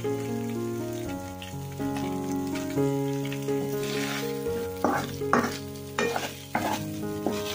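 Shredded chicken sizzling in a wok while a wooden spatula stirs and scrapes it, with several sharp scraping strokes in the second half. Background music plays throughout.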